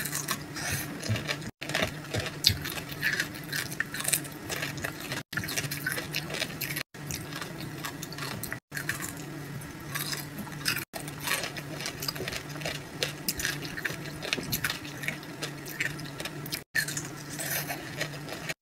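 Close-up crunching and chewing of yogurt-dipped amber sugar (kohakutou) candy, its crisp sugar crust crackling irregularly between the teeth.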